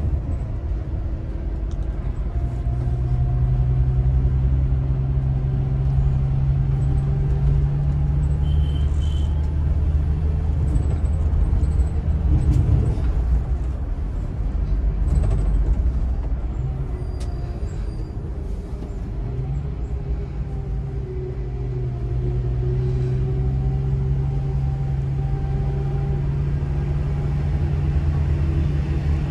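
Scania multi-axle coach's engine running under way, heard from inside the driver's cabin, with road noise beneath it. The low drone eases off for several seconds in the middle and then picks up again.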